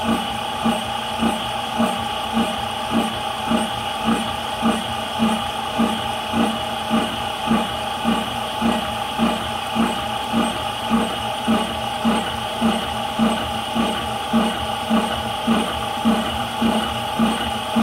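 High-pressure PCP air compressor running steadily with a regular pulse a little under twice a second over a steady whine, filling a near-empty 180cc air cylinder toward 200 bar.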